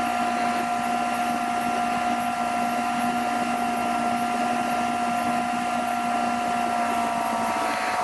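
Steady machine hum: several held tones over a hiss, sagging slightly in pitch just before it stops near the end.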